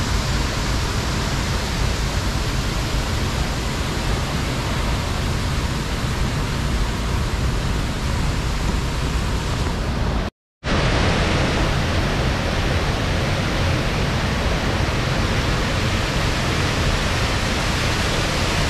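Steady rush of a waterfall and river rapids: an even, dense wash of falling and flowing water, broken by a split-second gap about ten seconds in.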